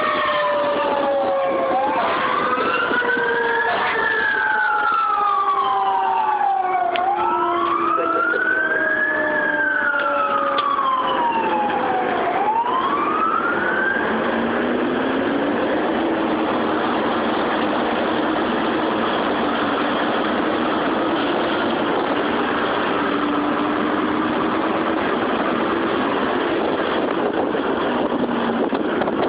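Fire engine siren wailing up and down about every five seconds, with lower tones slowly sliding down beneath it, heard from inside the cab. The wail stops about halfway through, leaving the steady run of the engine and road noise.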